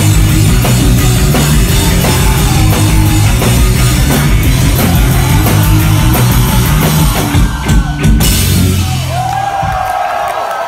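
Live rock band playing loud, with drum kit, electric guitar and bass. The song stops abruptly about eight seconds in, and the crowd starts cheering near the end.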